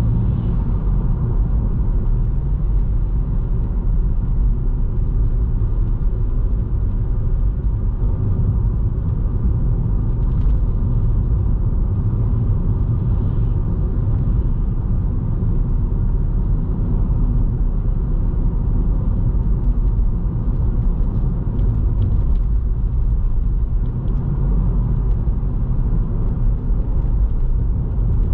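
Steady low rumble of a Toyota Vitz driving along a highway: continuous road and engine noise, with no sudden changes.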